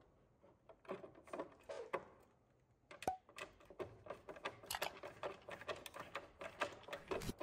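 Light clicks and taps of handling work inside a metal breaker panel while an AFCI breaker's pigtail neutral is fastened to the neutral bar. The clicks are sparse at first and come thick and fast from about three seconds in, with a brief squeak about three seconds in.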